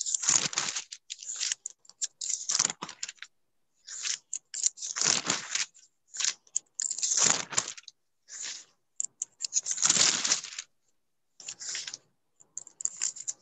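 Irregular bursts of rustling and handling noise over a video call's microphone, broken up by short silent gaps, with no voice.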